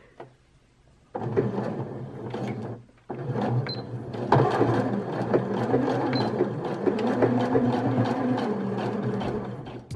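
Janome DKS100 sewing machine stitching a seam through needlecord fabric: it runs for about two seconds, stops briefly, then runs steadily again for about seven seconds, the stop and restart fitting a few reverse stitches to secure the start of the seam.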